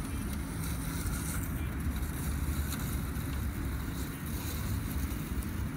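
Steady low rumble of wind buffeting the microphone outdoors.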